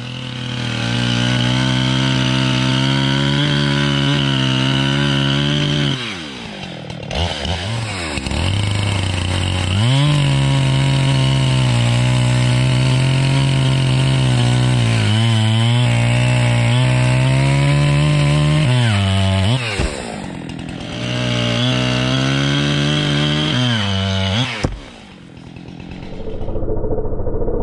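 Redmax two-stroke chainsaw cutting into a standing tree trunk to fell it. It runs at full throttle in three long runs, the pitch sagging and recovering under load, and drops back to lower revs between runs and near the end.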